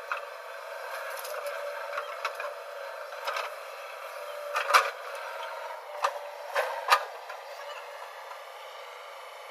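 JCB 3DX backhoe loader's diesel engine running steadily as it digs and loads mud, with sharp clanks from the bucket and digging arm scattered through. The loudest clank comes a little under five seconds in, and a quick pair follows near seven seconds.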